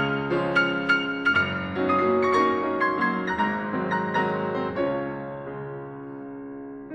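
Background piano music: a gentle melody of struck notes that ring on, growing softer in the last two seconds.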